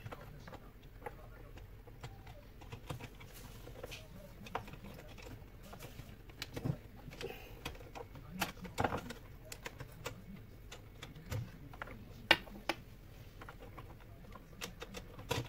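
Irregular light clicks and knocks of plastic parts and fittings being handled and pushed into place inside an opened Saeco Xsmall espresso machine, with one sharper click about twelve seconds in.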